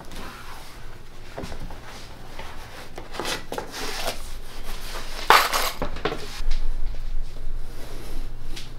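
Handling noises as a batting-wrapped foam cushion is shifted on upholstery fabric: rustling and rubbing of the fabric, with scattered knocks and scrapes on a wooden table, the loudest rustle about five seconds in.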